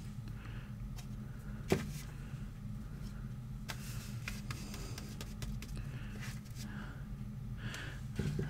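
Quiet handling sounds of a 3D-printed ABS plastic buoy: one sharp knock a little under two seconds in, then a few faint ticks and a soft rustle near the end, over a steady low hum.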